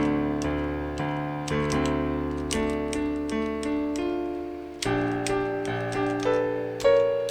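Piano sound from a virtual piano played on a computer keyboard: single notes and small chords are struck slowly, about once every half second to a second, and each rings and fades. A faint clack of the computer keys is heard at each press. This is a beginner's practice playing.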